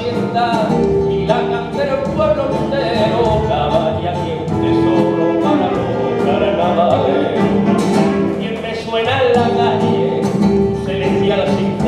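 Live rumba music from a band, with a steady percussion beat and a wavering melody line over it.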